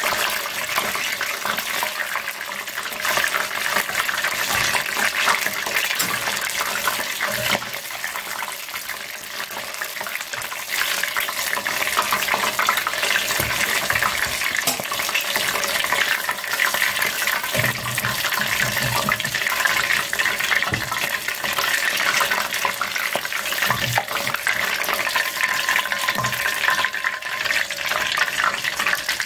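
Battered oysters deep-frying in a pot of hot oil: a steady sizzle full of fine crackling, easing a little around eight to ten seconds in.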